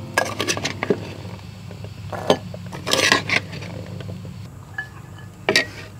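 Boiled chickpeas and kidney beans tumbling into a clay pot from a bowl: a string of short clatters and knocks, the longest a rattling patter about three seconds in.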